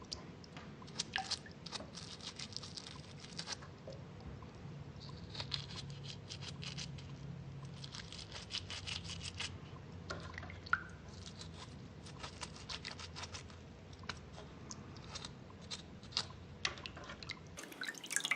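Faint, irregular crunching and scraping clicks of soaked dig-kit plaster being picked and scraped away from a small pyrite piece, over a low hum.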